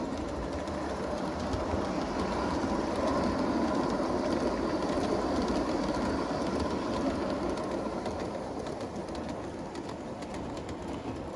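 Garden-scale live steam train with an Accucraft Sabrina locomotive pulling a mixed string of G-scale cars, its wheels rolling along the track. The rolling grows louder to a peak a few seconds in, then fades as the train moves on.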